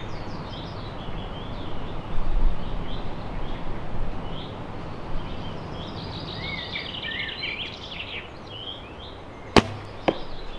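ILF recurve bow (Morrison Max 4 limbs on a Dryad Epic 17 riser) shot once near the end: a sharp snap of the string on release, then a fainter knock about half a second later as the heavy arrow strikes the foam 3D deer target. Birds sing over steady outdoor noise throughout.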